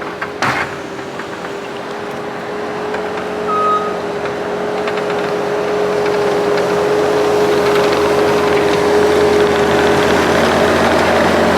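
A motor engine running steadily with a held, even whine, growing gradually louder over the second half; a short knock about half a second in.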